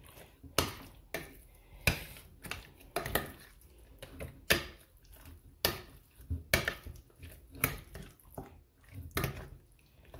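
Kitchen utensils knocking and clicking against a dish while the chicken is worked with herbs and marinade: irregular sharp knocks, about one or two a second.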